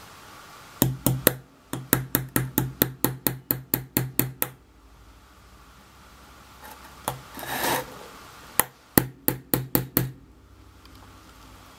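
Small hammer tapping a thin metal axle rod into a plastic toy propeller on a wooden board: quick light taps, about four a second, in two runs with a short rubbing noise in the pause between. The axle is a tight fit that has to be driven in.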